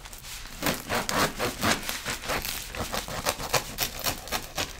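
Bread knife sawing through the hard, crackly crust of a sourdough loaf: rough rasping strokes, about three or four a second.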